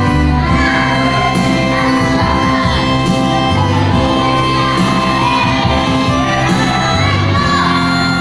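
Church worship band playing a song with a voice singing over it, the bass notes moving every second or so under held chords.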